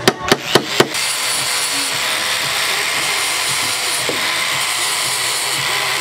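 Handheld angle grinder with a sanding disc running steadily against plywood, a continuous abrasive hiss with a faint steady whine from the motor. It starts about a second in, after a few rapid knocks.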